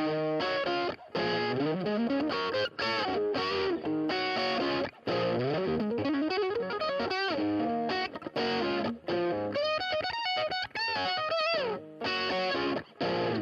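Electric guitar with a GFS gold foil pickup, played with distortion through a small Vox amp. It plays a phrase of single notes and chords with string bends and slides, stopping briefly between licks.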